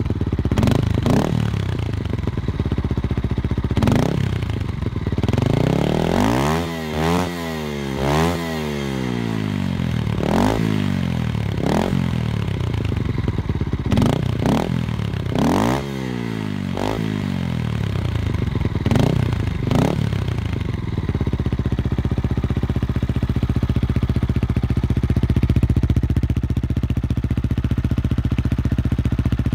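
Beta RR 125 LC single-cylinder enduro engine revved again and again through its open exhaust with the dB-killer removed, each blip rising and falling in pitch. After about twenty seconds it settles to a steady running note.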